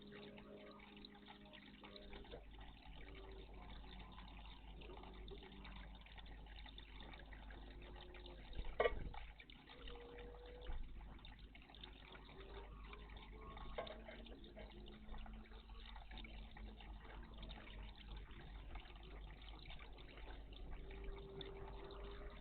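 Faint water trickling and dripping in a garden bird bath, with one sharp tap about nine seconds in.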